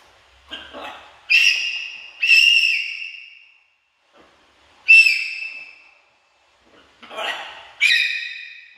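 Blue-and-gold macaw giving a series of loud, steady-pitched whistled calls, four main ones, each trailing off. Softer, rougher sounds come just before the first and last calls.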